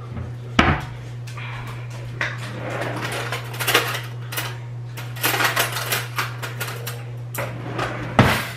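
Plates and cutlery clinking and clattering as food is dished out onto plates, with a few sharper knocks, one about half a second in and one near the end, over a steady low hum.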